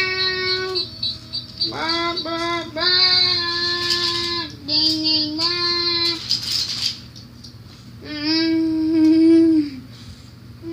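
A young child singing a wordless tune in long, held notes: several sung phrases with a short pause before the last one.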